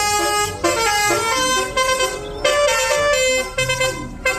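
Telolet bus horn: a multi-note air horn playing a tune of held notes that step from pitch to pitch, several tones sounding together.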